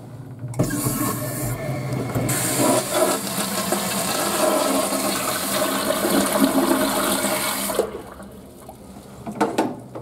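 Western-style flush toilet flushing: water rushes into the bowl about half a second in, runs loud for about seven seconds, then drops off suddenly to a quieter trickle as the bowl settles and refills. A couple of knocks near the end.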